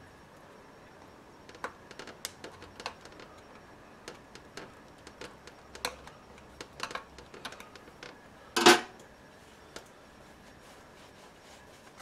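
Steel flathead screwdriver tip clicking and scraping against the head of a nail in a car tyre's tread as the nail is pried out of the puncture: a run of small sharp clicks, then one louder harsh scrape about two-thirds of the way through.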